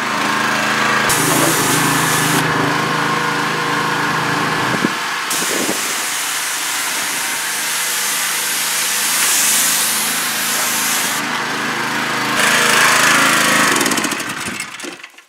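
Gasoline pressure washer running, its small engine humming steadily under the loud hiss of the high-pressure water spray, which changes as the spray starts, stops and hits different surfaces. The sound fades out near the end as the washer is shut off.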